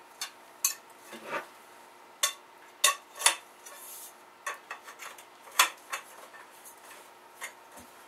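Metal target legs being slid into and knocked against their metal Y brackets during assembly: a series of sharp, irregular metallic clanks and clinks with handling noise between them.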